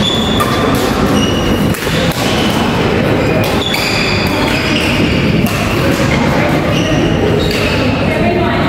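Badminton doubles rally in a sports hall: rackets striking the shuttlecock and shoes squeaking on the wooden court, over steady hall noise with voices.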